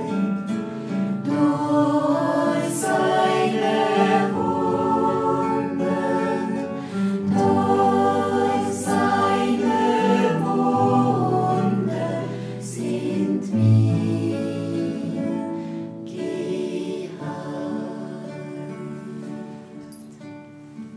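A choir singing a slow hymn, several voices holding long notes together; the singing fades away near the end.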